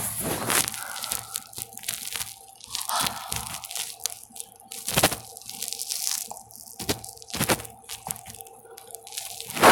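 Irregular crunching and rustling close to the microphone, with sharp clicks now and then, the loudest about halfway through. Under it runs a faint steady hum.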